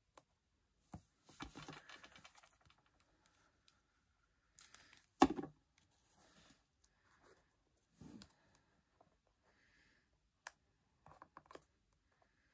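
Cardstock and paper rustling and light clicks as small paper flowers are handled and pressed onto a card box, with one sharp tap about five seconds in as the loudest sound.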